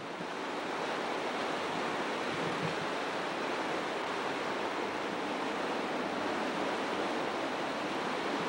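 Steady rush of whitewater from a large river surfing wave, churning without a break.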